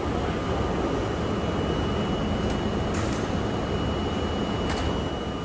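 Budd R32 subway train running, heard from inside the car: a steady low rumble with a faint high steady tone and a couple of light clicks.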